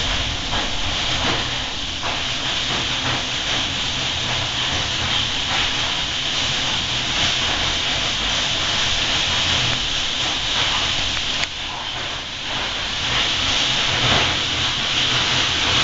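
Hailstorm: hail and rain pelting down in a dense, steady hiss, dipping briefly about eleven seconds in.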